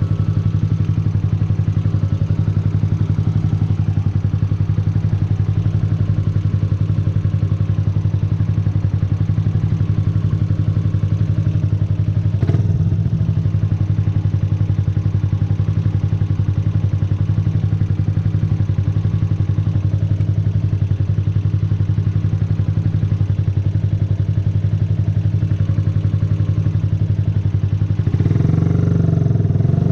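A 2009 Yamaha YZF-R125's single-cylinder four-stroke engine idles steadily. There is one short knock about twelve seconds in. Near the end the revs rise and waver as the throttle is opened.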